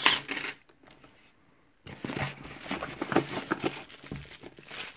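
Metal lock cylinder and its keys clatter onto a table. After a short pause, bubble wrap crinkles and crackles as a wrapped lock is picked up and handled.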